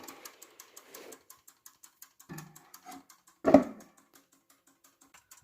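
Rapid, even ticking of a small platform lever escapement in a German mantel clock, about six or seven ticks a second. It runs far too fast because the 8-day mainspring overpowers the escapement. A louder thump comes about three and a half seconds in.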